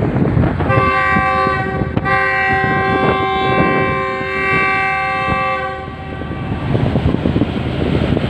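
Diesel locomotive's multi-tone horn: a short blast about a second in, then, after a brief break, a long blast of nearly four seconds. Wind buffets the microphone throughout.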